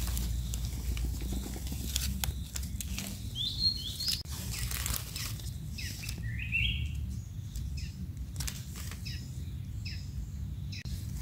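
Dry leaf litter rustling and crackling in short clicks as the ground is walked over and mushrooms are handled, over a low rumble, with a few short bird chirps about three and a half seconds and again about six and a half seconds in.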